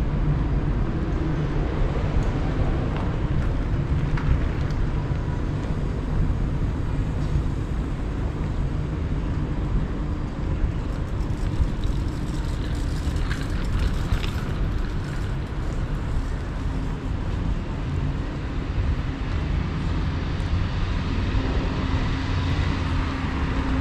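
City street traffic noise: a steady rumble of passing vehicles, with a steady droning tone coming in near the end.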